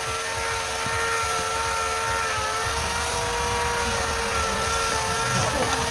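Woodturning lathe running with a steady whine over a broad hiss.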